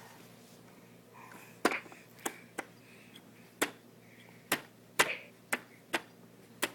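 A series of sharp, irregular clicks or knocks, about nine in all, each short with a brief ring, coming one to two per second after a quiet first second and a half.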